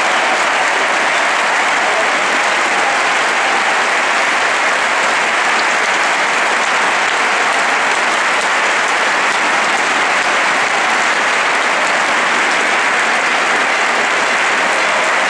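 Large stadium crowd applauding steadily, a dense unbroken sound of clapping.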